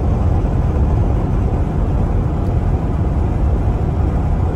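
Steady road noise heard inside a moving car at highway speed: a low rumble of tyres on the wet road and engine drone.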